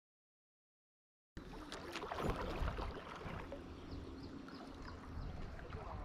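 Dead silence for about the first second and a half, then the outdoor ambience of a river's edge starts suddenly: a steady rush of wind on the microphone and flowing water, with a few small knocks.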